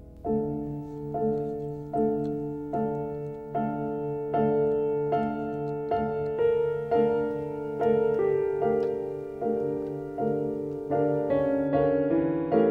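Background music: a piano-like instrument striking soft repeated chords a little over once a second, each fading before the next, with the harmony shifting in the last few seconds.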